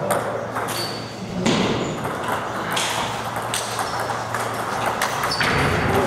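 Table tennis balls clicking off bats and tables, irregular sharp ticks about once or twice a second, from rallies on several tables at once.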